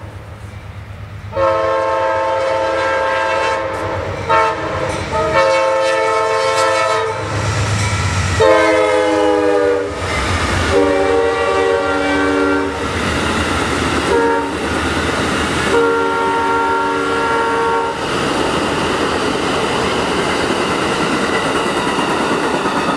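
Amtrak Silver Meteor passenger train sounding its locomotive horn in a string of long and short blasts at a grade crossing; the horn's pitch drops as the locomotive goes by, about eight seconds in. For the last few seconds the passenger coaches roll past with a steady rush and clickety-clack.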